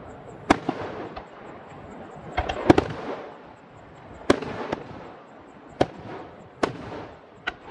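Aerial firework shells bursting one after another, about seven sharp booms spread over several seconds with the loudest pair a little before the middle, each trailing off in a lingering echo.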